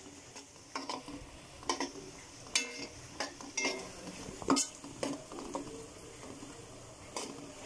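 A metal spoon stirring diced raw banana pieces frying in oil in an aluminium pot: irregular scrapes and knocks of spoon on pot over a faint, steady sizzle.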